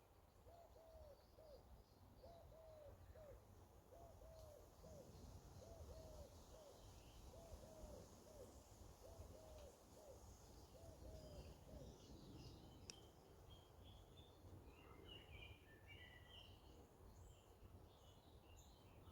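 Quiet woodland ambience: a low, soft cooing call repeated in quick pairs and threes for the first twelve seconds or so, then small birds chirping higher up through the rest.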